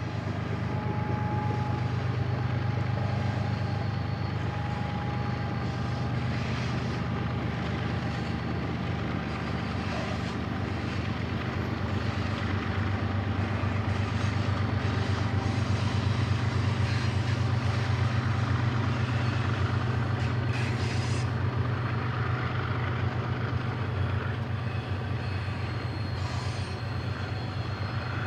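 Two BNSF diesel locomotives working under load as they haul a double-stack intermodal train upgrade: a steady low engine drone mixed with the rumble of the train rolling by, growing a little louder in the middle.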